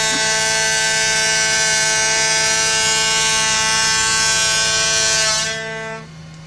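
Ship's foghorn giving one long, steady blast that cuts off about five and a half seconds in.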